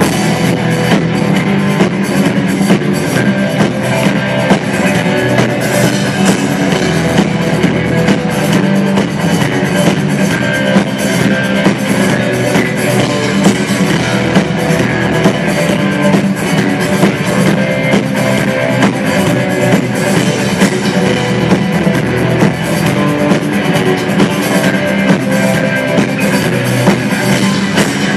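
Live rock band playing an instrumental passage of a song, with a drum kit keeping a steady beat under electric guitar and bass.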